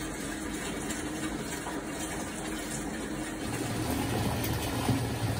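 Bath water running from the tap into the tub, a steady rush. About three and a half seconds in, a low steady hum joins it.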